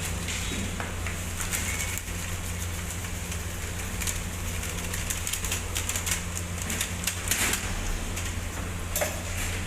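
Cooking noise at a griddle: a steady low hum with scattered clicks and scrapes, busiest about seven seconds in.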